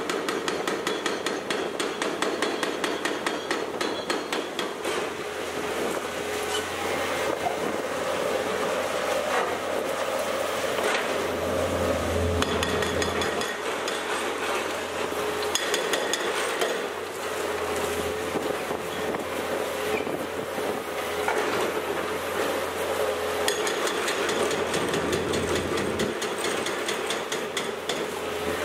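A 4000 kg hydraulic breaker on a Komatsu PC490LC excavator hammering reinforced concrete in rapid, repeated blows. The excavator's engine runs steadily underneath.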